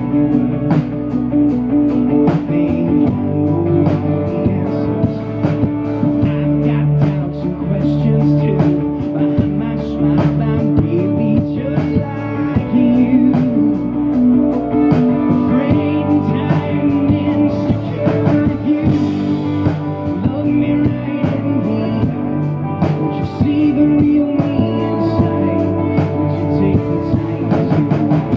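Live pop-rock band playing a song: electric guitar and a drum kit with a steady beat, and a male lead vocalist singing over them.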